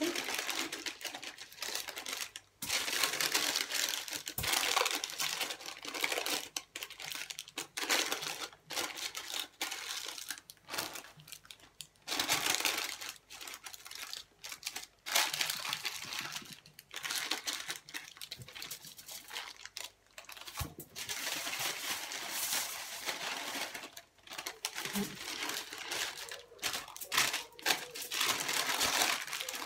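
Baking parchment paper crinkling and rustling in irregular bursts as hands fold and press it around a joint of meat to wrap it into a parcel.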